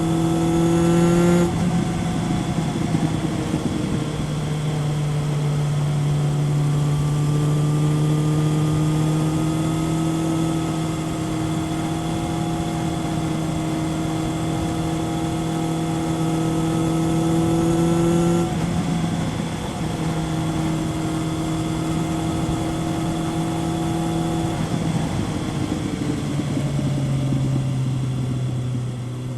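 Kawasaki ZRX 1100's inline-four engine through a Yoshimura exhaust, heard on board while riding. The engine note climbs slowly, with short breaks at gear changes about a second and a half in, about four seconds in, around eighteen seconds and around twenty-four seconds. Near the end the note drops lower as the bike slows.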